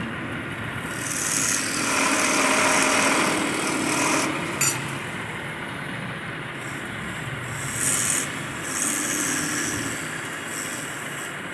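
A tool scraping and rubbing against wood in a few bursts over a steady machine noise, with a sharp click about four and a half seconds in.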